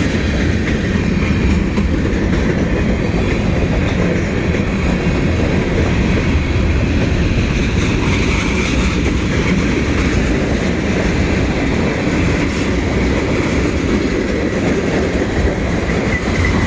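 Freight train cars rolling past, a steady rumble with wheels clacking over the rail joints.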